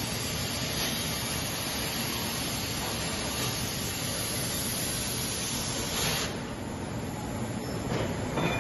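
Plasma cutting torch of a CNC plate processing centre cutting plate: a steady loud hiss that cuts out about six seconds in when the arc stops, leaving a lower machine rumble.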